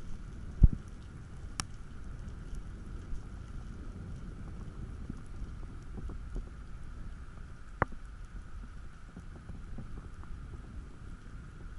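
Underwater noise picked up by a camera in its housing while a diver swims down: a steady low water rumble with scattered sharp clicks, and a single dull thump about half a second in.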